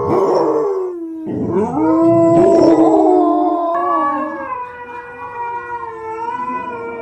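Dog howling in long, drawn-out howls one after another, each wavering and slowly falling in pitch.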